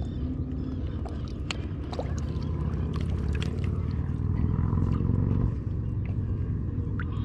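Boat motor running, a steady low drone that swells about four seconds in and drops off about a second and a half later, with scattered small clicks and knocks of handling.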